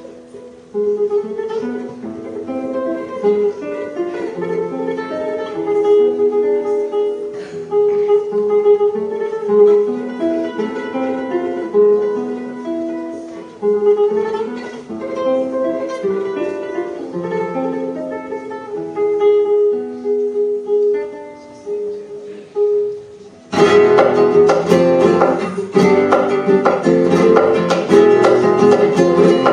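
Solo classical guitar playing a flamenco-style piece: a flowing passage of plucked single notes. Near the end it breaks suddenly into loud, dense strummed chords.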